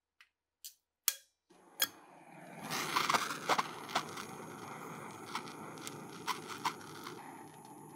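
Handheld butane torch: a few clicks as it is lit, then a steady hiss of the flame from about a second and a half in. Light metal clinks sound over the hiss as the part held in locking pliers touches the anvil.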